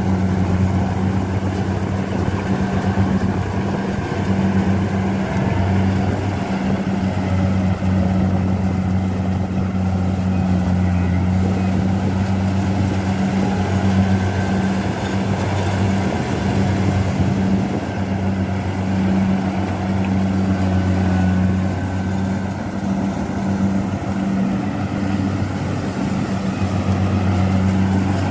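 Crawler rice combine harvester running steadily while cutting and threshing standing rice: a continuous engine drone with the machinery's noise over it.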